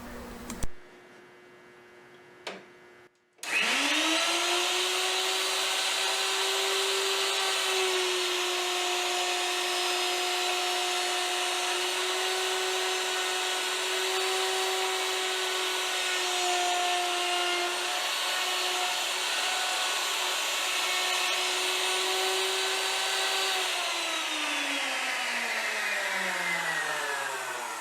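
Wood router started about three seconds in, spinning up quickly to a steady high whine, with small dips in pitch as it cuts a spline slot in a wooden chair on a repeat pass along a jig. It is switched off well before the end and winds down with a steadily falling pitch.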